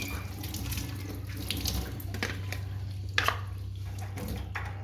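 Tap water running into a sink, with a few sharp knocks as something is handled under the stream, the clearest a little past three seconds in.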